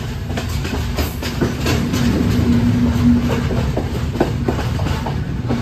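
Yal Devi passenger train running at speed, heard from on board: a steady rumble with irregular clickety-clack as the wheels pass over rail joints. A steady low hum rises through it for about a second in the middle.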